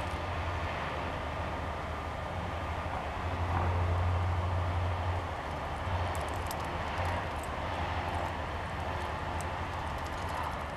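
A steady low rumble that swells a little a few seconds in, with a few faint light clicks around the middle.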